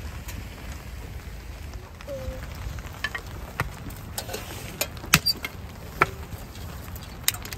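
Split kindling crackling as it burns in a folding metal fire pit: scattered sharp pops over a steady low rumble.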